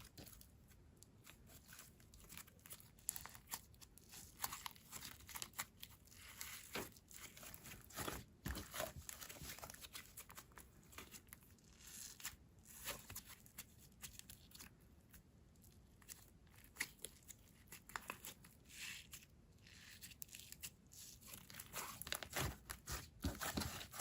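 Thick, stretchy clay slime being stretched and squished by hand, giving faint irregular sticky crackles and clicks.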